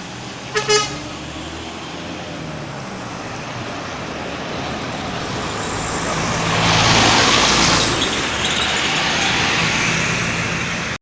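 Roadside traffic: a vehicle horn gives a quick double toot about half a second in, then a vehicle passes close, its engine and tyre rush loudest about seven seconds in before settling back to steady road noise.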